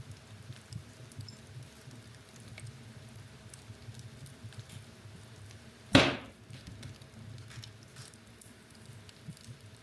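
Wood fire burning in a fireplace: a low steady rumble with scattered small crackles, and one loud sharp pop about six seconds in.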